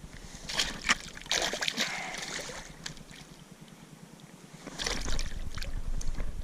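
Water splashing in irregular bursts as a hooked largemouth bass thrashes at the surface while being fought on the line, with a cluster of splashes in the first two seconds and more about five seconds in.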